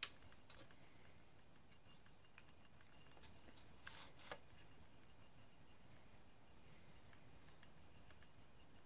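Near silence with a few faint taps and clicks of a cat's paws batting a plastic motorized cat toy and its circling feather: a sharp tap at the start and a small cluster about four seconds in.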